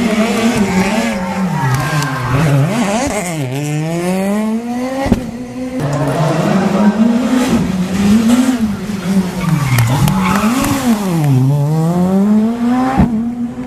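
R5 rally car's 1.6-litre turbocharged four-cylinder engine revving hard at competition pace, the pitch dropping sharply on lifts and downshifts and climbing again several times. Sharp cracks about five seconds in and near the end.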